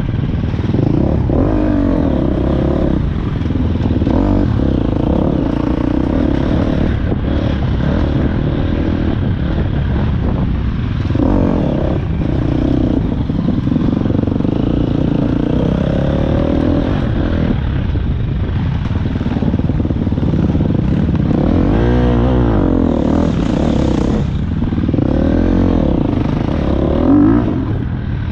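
Engine of a 900 cc ride running under way, its revs rising and falling, with clatter and scraping from the machine mixed in.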